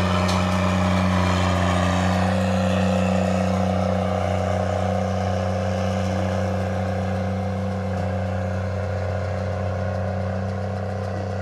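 Case IH tractor pulling a round baler: a steady engine drone with a deep hum, slowly growing fainter as it draws away.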